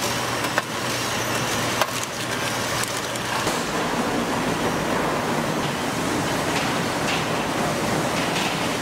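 Steady factory machinery noise, an even hiss with a faint low hum early on and a few sharp clicks.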